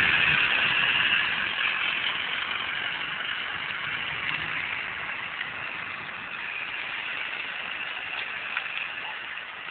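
Ford F450 Super Duty dually's turbocharged engine running as the truck pulls away slowly, the sound fading steadily as it moves off.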